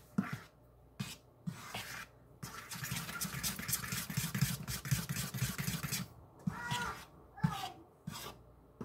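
Spoon stirring thin batter in a bowl. A few single knocks of the spoon on the bowl come first, then about three and a half seconds of rapid stirring strokes, then a few more knocks.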